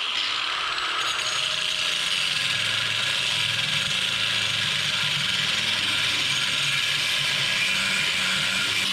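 Power saw cutting through metal exhaust tubing, running steadily for about nine seconds and stopping suddenly near the end.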